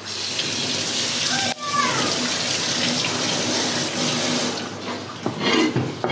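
Tap water running hard into a stainless-steel sink as a fish is rinsed under it. The flow breaks off briefly about one and a half seconds in, then runs on and dies away near the end.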